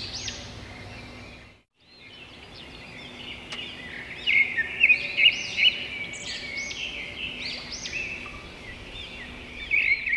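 Songbirds singing and chirping, with many quick, repeated arching notes from several birds. The birdsong cuts out briefly about a second and a half in, then resumes, loudest a few seconds later.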